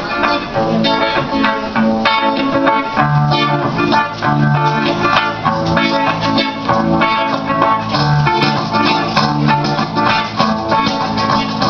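Azorean folk-dance music played back over a loudspeaker, with plucked and strummed guitars over a steady beat.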